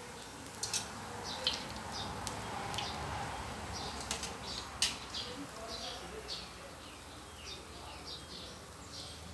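Hot oil sizzling and crackling in a wok as slices of minced-pork-topped bread deep-fry, with a few sharp clinks of the metal spatula as the slices are lifted out.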